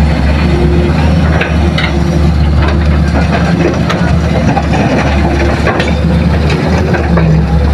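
Heavy diesel engines running steadily as a Hitachi hydraulic excavator loads soil into idling dump trucks, with scattered knocks and clatter.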